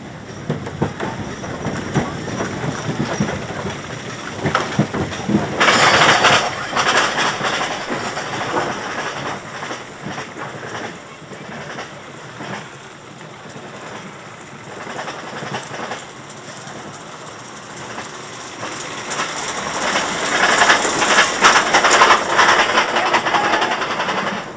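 Arrow mine train roller coaster heard from the front seat: the cars rattle loudly along the steel track, go quieter while the train climbs the chain lift, then rattle loudly again near the end.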